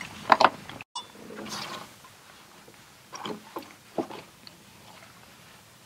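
A couple of sharp metallic clinks as the bridle's stainless chain hook comes up off the anchor chain. After an abrupt cut, quieter handling follows: a few soft knocks and clicks as the rope bridle is gathered in.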